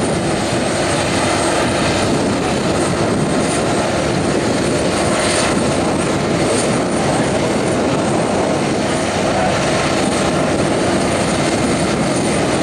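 SCARAB compost windrow turner running under load as it straddles and turns a steaming windrow: a loud, steady drone of engine and rotating drum.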